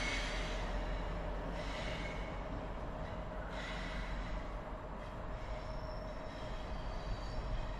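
Train locomotive approaching slowly: a steady rumble with a faint steady hum and no sudden noises.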